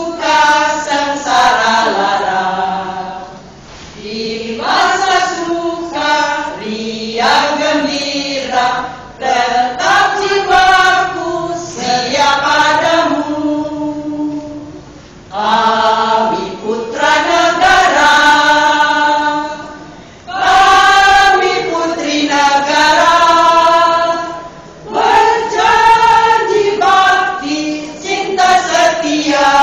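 Women's choir singing together, phrase after phrase with short breaks between them.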